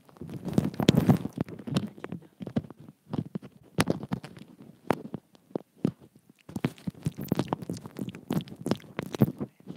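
Teeth and lips nibbling right on a wired earphone's inline microphone, giving close, irregular crackles, clicks and low rumbles. The noise thins to scattered clicks in the middle while the mic is handled, then turns dense again when it goes back to the mouth.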